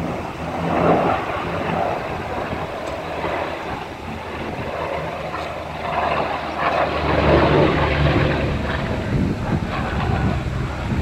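Engines of a jet fighter and a propeller warbird flying overhead in formation, a steady mechanical drone with low engine tones that swells about a second in and again from about six seconds in, with wind buffeting the microphone.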